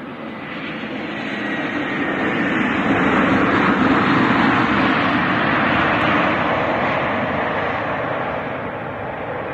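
Jet airliner's engines passing: a broad rush that swells to its loudest about four seconds in, then fades away.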